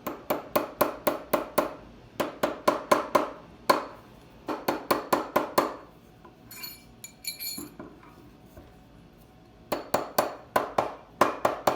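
Hammer tapping a silver ring on a steel ring mandrel to true it round: quick runs of light metallic strikes, about five a second, with a pause of faint ringing clinks in the middle.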